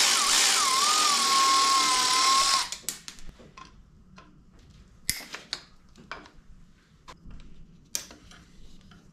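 Cordless electric ratchet running for about two and a half seconds, its motor whine wavering and then holding steady, then stopping; after it, scattered light clicks and clinks of hand tools on the engine.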